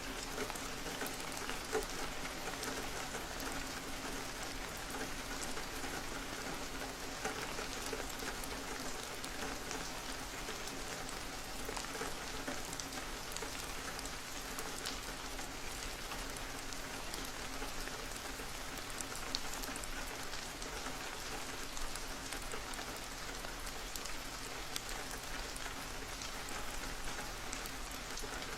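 Steady rain, with many separate drops ticking sharply among the even hiss.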